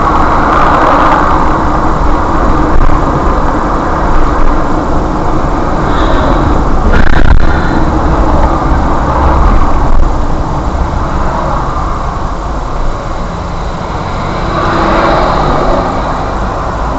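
Road and engine noise of a car driving in city traffic, heard from inside the car through a dashcam microphone, with a brief knock about seven seconds in.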